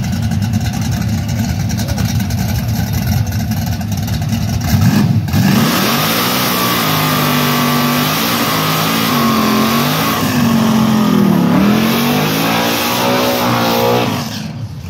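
Drag car engine running loud at the start line. About five seconds in it revs into a burnout, its pitch rising and falling again and again over the hiss of the spinning rear tyres. It falls away near the end as the car pulls off down the track.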